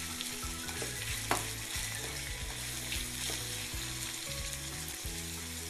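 Chopped shallots and curry leaves sizzling steadily in hot coconut oil in a small pan, stirred with a metal spoon, with a brief clink about a second in. This is the seasoning (tempering) being sautéed until the shallots brown.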